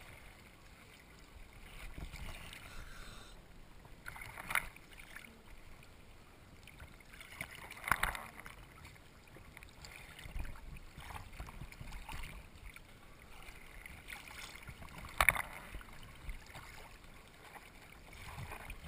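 Sea water sloshing and lapping around a diver and a dive boat's stern at the surface, with a few louder splashes or slaps, three of them standing out through the stretch.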